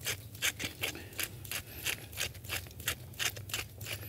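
Hand spice mill being twisted to grind salt and pepper, a steady run of short, crisp grinding strokes, about three or four a second.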